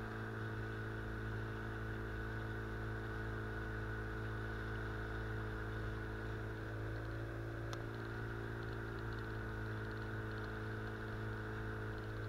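Outboard motor pushing an inflatable boat upriver at an even throttle: a constant, unchanging drone.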